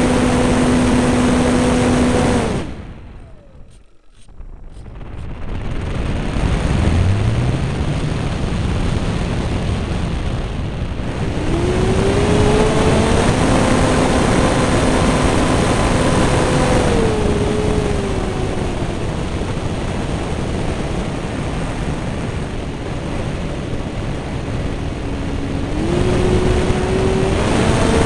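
Onboard sound of a radio-controlled model plane's motor and propeller in flight, a steady drone with wind rush. About three seconds in the motor is cut and the sound falls away almost to nothing. It then spools back up with a rising whine and shifts in pitch as the throttle changes.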